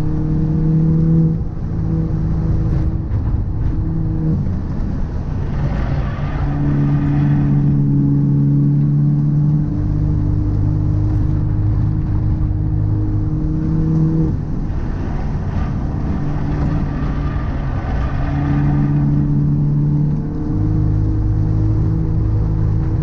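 Car being driven, with a steady low drivetrain hum that changes pitch and strength in steps every few seconds. A rougher rushing noise builds twice, about six seconds in and again past the middle. This is the abnormal noise and vibration that the owner suspects comes from a drive shaft or a wheel hub.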